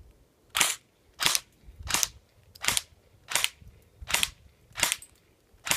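Lancer Tactical M4 CQBR airsoft electric gun (AEG) firing on full auto in eight short, evenly spaced bursts, about two-thirds of a second apart.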